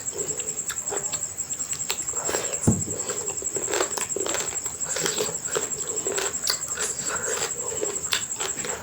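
Close-miked wet chewing and lip-smacking of food, with many quick irregular clicks and one low thud about a third of the way in. A steady high-pitched whine runs underneath.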